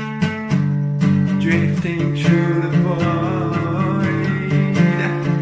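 Music: a guitar-driven instrumental passage with strummed chords over steady low notes and a melody line that wavers in pitch.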